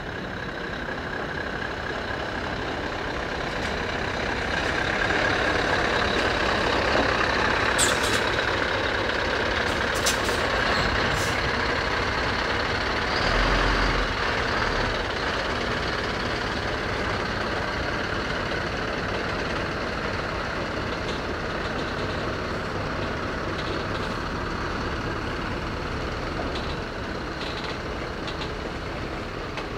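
Scania V8 heavy truck's diesel engine running as it hauls a loaded low-loader trailer past, growing louder toward the middle and then holding steady. A few short, sharp hisses or clicks come about a third of the way in.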